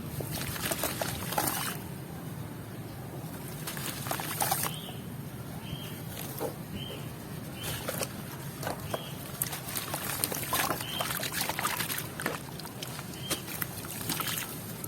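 Sand and charcoal blocks being crumbled and broken up: a run of gritty crackles and small snaps, over the steady rumble of heavy wind on the microphone.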